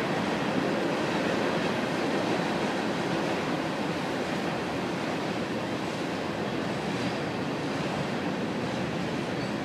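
Union Pacific freight train rolling past, a steady, even rush of rumbling noise that eases off slightly over the second half.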